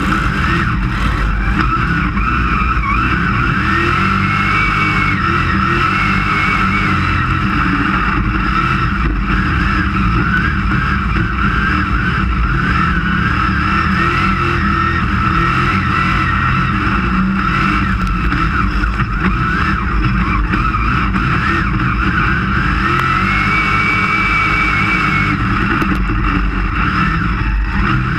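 Dirt-track race car's engine running hard at racing speed, heard from inside the cockpit as a loud, continuous drone with slight rises and falls in pitch.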